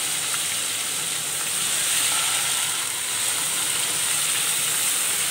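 Wet onion-and-spice paste sizzling steadily in hot mustard oil in a kadhai, just after it was added: the water in the raw paste frying off.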